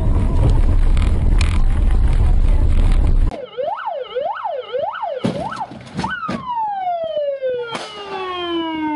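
Loud rumbling vehicle noise cuts off suddenly about three seconds in. An emergency vehicle siren follows: it rises and falls quickly about four times, then sounds one long tone that falls steadily in pitch, with a few sharp clicks in between.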